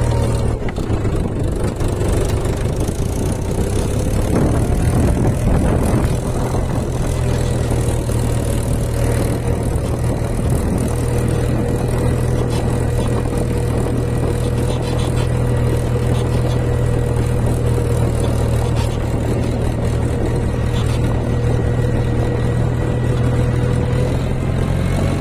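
An engine running steadily, a low even drone with a thin held whine above it that fades out near the end.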